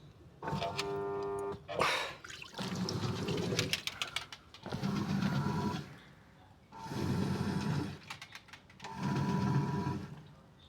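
Gafa automatic washing machine agitating: its motor and gearbox run in short strokes of about a second and a half, five times with pauses between, and there is a sharp click about two seconds in. The noise comes from a broken gearbox with damaged gears.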